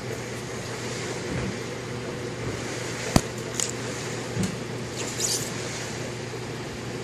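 A steady machine hum, with a sharp click about three seconds in and a few faint rubbing sounds as gloved hands press a label onto a car battery.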